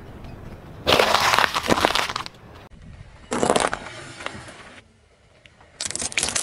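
A car tyre rolling over and crushing things in turn: bell peppers, sticks of chalk and tubes of paint. It is heard as three separate bursts of crunching and squashing: a long one about a second in, a short one about three and a half seconds in, and another near the end.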